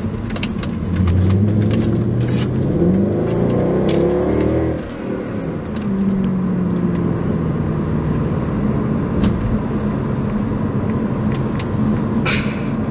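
Mercedes C63 AMG (W204) 6.3-litre V8 heard from inside the cabin, pulling hard with its note climbing and getting louder for about four seconds. Then the revs drop suddenly and the engine runs on at a lower, steadier note that slowly falls away.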